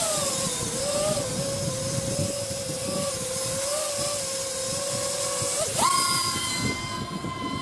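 Brushless electric motors and propellers of a small RC quadcopter, whining at a steady pitch with slight wobbles. Near the end the pitch jumps sharply to about double as the throttle goes up and it climbs into the air. Wind hiss on the microphone throughout.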